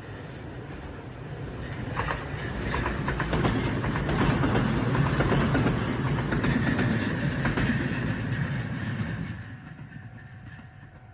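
E131-series electric train passing by, its wheels clacking over the rail joints. The sound builds to a peak in the middle and fades away near the end.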